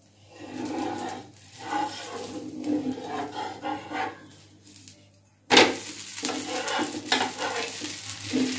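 A dosa frying on a hot dosa pan: oil sizzling, with a wooden spatula scraping across the dosa as chilli paste is spread. The sizzling and scraping start suddenly a little past halfway and are loudest from there; before that the sound is quieter.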